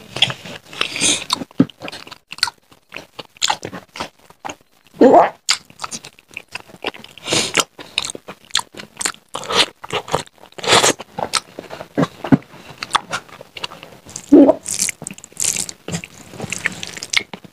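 Close-miked chewing and wet mouth smacking of someone eating rice and curry by hand, with a rapid, irregular patter of small clicks. A few louder mouth sounds stand out about five seconds in and again near the end.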